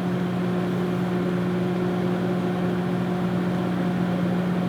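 Panasonic NN-SN67HS inverter microwave oven running on power level 4: a steady hum from the inverter and magnetron over the cooling fan's whir, drawing about 800 watts continuously rather than cycling on and off.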